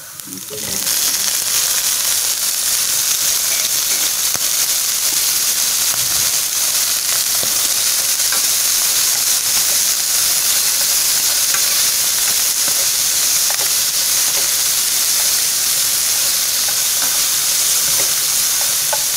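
Bird giblets (gizzards, hearts and livers) frying in hot oil with garlic and chili: a loud sizzle that jumps up about a second in as they are poured into the pan, then runs steadily. Chopsticks stir through the giblets with light clicks.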